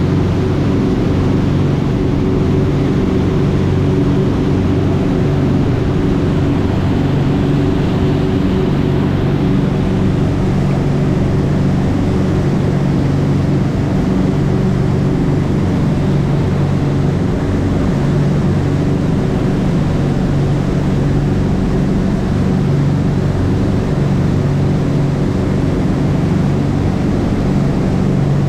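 Sea Ray 400 Sundancer's twin engines running steadily at cruising speed, with the rush of churning wake water.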